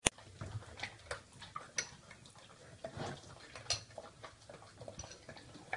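A metal spoon clinking against a ceramic cereal bowl while a Rottweiler licks and smacks at the spoon, in a run of small, irregular clicks, a few of them briefly ringing.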